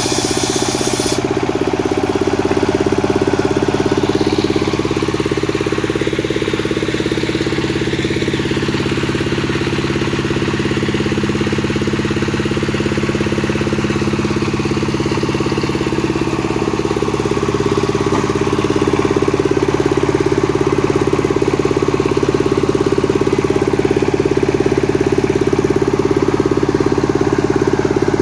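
Stihl MS 382 two-stroke chainsaw running steadily and loudly with an even engine note.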